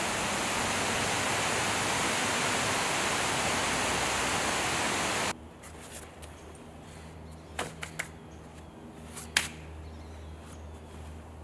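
Loud, steady rushing of wind on the microphone and through the trees, cutting off abruptly about five seconds in. After that a much quieter low hum, with a few sharp clicks or taps near the middle and one louder one a little later.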